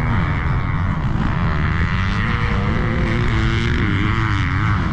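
Motocross dirt bike engines running and revving, their pitch slowly rising and falling, under a steady rush of noise.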